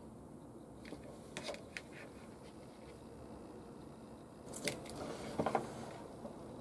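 Small clicks and scrapes of hands handling parts and tools on a workbench: a few light clicks about a second in, then a louder run of clicks and scraping near the end.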